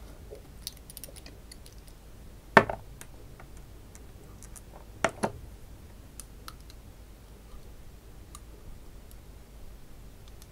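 Small glass bottles and a dropper cap handled on a tabletop: light scattered clicks, a sharp knock about two and a half seconds in, and two more knocks in quick succession about five seconds in.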